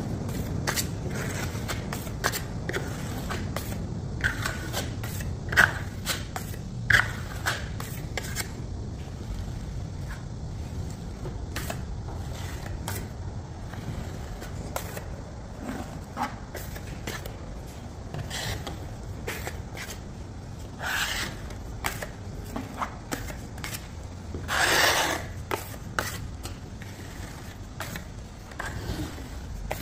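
Steel plastering trowel scraping plaster compound onto drywall in many short strokes, with a couple of sharper knocks early on and one longer scrape near the end.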